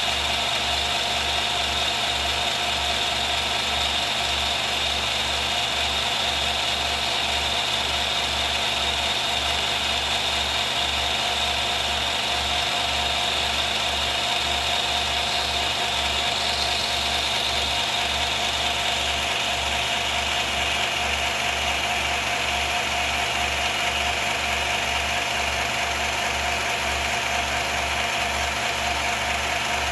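Film projector running steadily: a continuous mechanical whir over a low, evenly pulsing throb.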